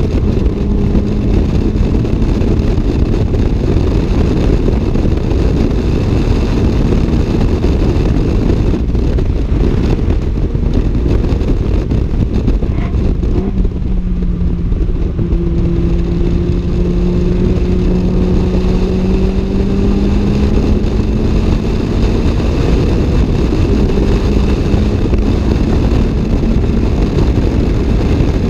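Toyota AE86 Levin's 4A-GE twin-cam four-cylinder engine pulling hard at high revs through a 5Zigen exhaust, heard from inside the cabin over heavy road and wind noise. The note drops in pitch about halfway through, as at an upshift, then climbs slowly again.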